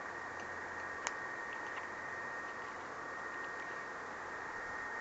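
Steady hiss with one sharp click about a second in and a few faint ticks after it: a spoon against a metal canteen cup as macaroni noodles are stirred in water.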